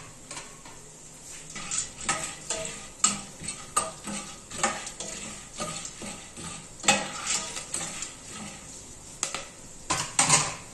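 Metal spoon stirring unpopped corn kernels in hot oil in a small stainless steel pot. The spoon scrapes and clinks irregularly against the pot and kernels.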